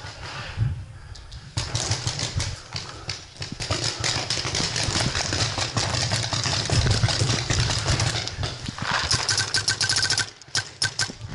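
Footsteps on dirt and the rattle of carried paintball gear while on the move, with wind rumbling on the body-worn camera's microphone.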